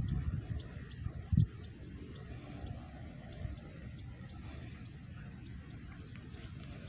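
Rapid, irregular high-pitched ticking, about three clicks a second, over a low rumble on the microphone. The rumble has a few strong buffets in the first second and a half, then settles to a faint steady background.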